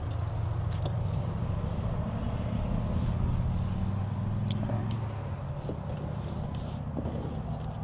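A vehicle engine idling, a steady low hum that eases a little about five seconds in, with a few light clicks over it.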